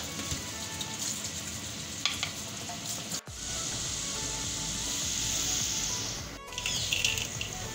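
Potato finger chips deep-frying in hot oil in a black iron kadai, a steady sizzle that grows much louder from about three seconds in. Soft background music plays underneath.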